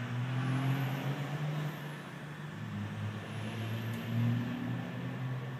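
EMD SD40-2 diesel-electric locomotive idling: its turbocharged 16-cylinder EMD 645 engine gives a steady low rumble under a hiss of air, swelling slightly just past four seconds in.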